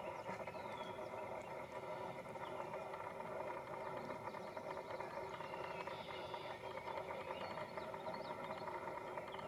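Beaver chewing yellow water-lily leaves, soft irregular crunching and ticking, over a steady hum with a few short high chirps.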